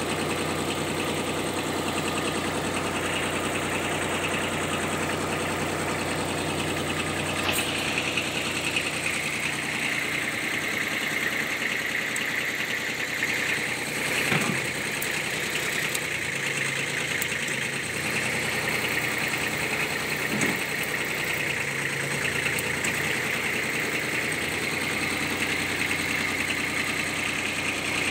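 Kubota B1502 compact tractor's diesel engine idling steadily, with a few brief clicks partway through.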